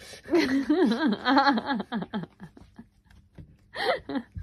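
A person laughing: a long run of giggles in quick pulses, then a short laughing burst near the end.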